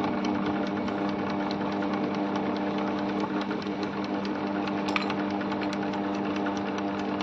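Steady electric machine hum with a constant low drone, with a few faint light clicks scattered through it.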